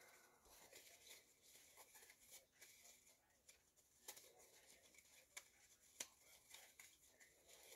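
Near silence, with a few faint clicks in the second half as a stack of trading cards is handled.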